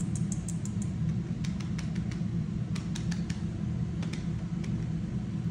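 Quick, light clicks in short runs come from a small toy ball as it is rolled and played with. They sit over a steady low hum.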